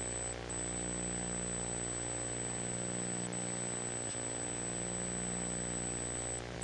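Steady electrical hum with a stack of even overtones and a thin high whine, from an open videoconference audio line carrying no voice; the remote room's sound is not coming through.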